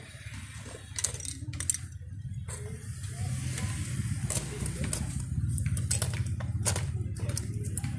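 Scattered clicks and taps of a small TV speaker's metal frame and tools being handled on a workbench, over a steady low rumble that grows louder about a third of the way in.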